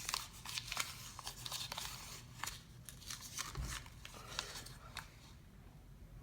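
Paper packing being pulled out and unfolded by hand, crinkling and rustling with small sharp crackles, dying away about five seconds in.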